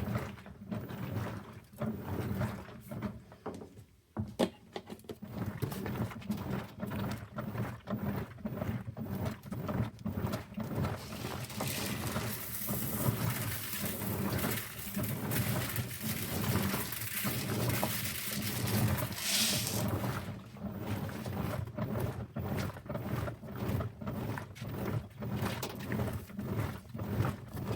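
Dense, irregular crackling and crunching from a bleach reaction, with a stretch of hiss through the middle.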